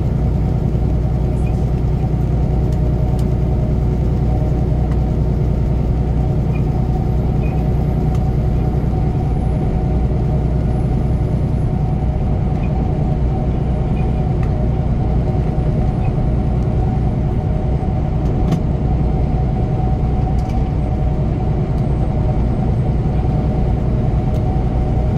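A semi truck's diesel engine and road noise heard from inside the cab at highway cruising speed: a steady low drone with a constant hum and hiss over it.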